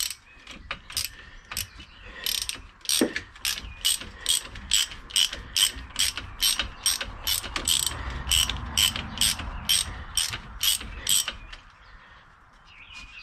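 Ratchet wrench clicking as its handle is swung back and forth on a socket, a steady run of sharp clicks at about two a second that stops about eleven seconds in.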